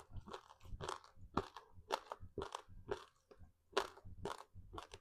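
Close-up chewing of crispy seaweed-wrapped rice, a steady run of crackly crunches about two to three a second, with a short pause a little past the middle.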